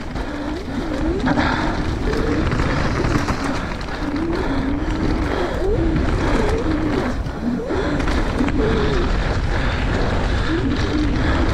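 Downhill mountain bike descending a rough trail at speed: wind rushing over the microphone, tyres rumbling over dirt and rock, and frequent rattles and clicks from the bike. A wavering mid-pitched tone runs underneath throughout.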